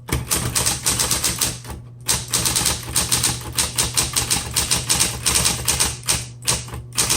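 Smith Corona Electra 120 electric typewriter being typed on fast: a rapid run of key and typebar strikes with a brief pause about two seconds in. A steady low hum runs underneath.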